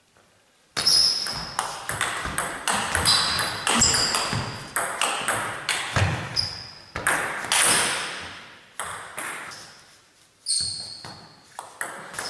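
Table tennis ball clicking against rubber bats and the table in a fast rally, each hit echoing in a large hall. The hits start about a second in, pause briefly near the end, then resume.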